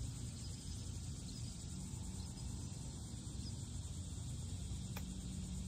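Steady outdoor background hiss and low hum, then a single crisp click about five seconds in: a golf club striking the ball on a short chip shot from the fairway grass.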